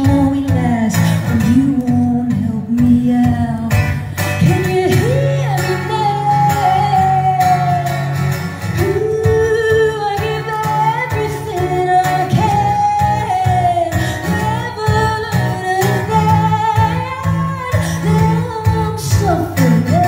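A woman singing a melody into a microphone while playing acoustic guitar, performed live and amplified.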